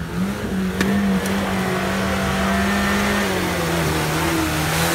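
Lada Niva's four-cylinder engine held at high revs as the car ploughs through deep mud. The engine note rises just after the start, holds steady, and eases slightly about three seconds in. Two short clicks come about a second in.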